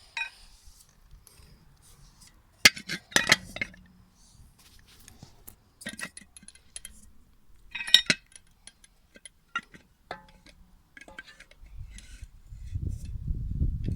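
Scattered metallic clinks and knocks, a few sharp ones about three seconds in and again at eight seconds, from the metal pot and parts of a homemade angle-grinder crusher being handled; the grinder is not running. Near the end a low rumbling noise comes up.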